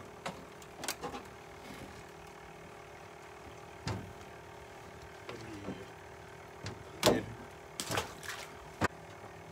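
Scattered clicks and knocks of a sheepshead being handled in a small boat, the loudest a sharp knock about seven seconds in, over a faint steady hum.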